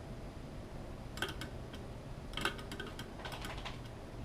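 Light clicking and rattling of the small parts of a vintage Cowley level being handled, in three short runs about a second in, midway and near the end.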